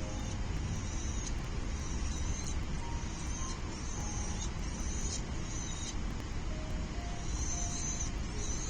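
Falcon chicks' high-pitched calls, repeating in short bouts of up to about a second, over a steady low rumble.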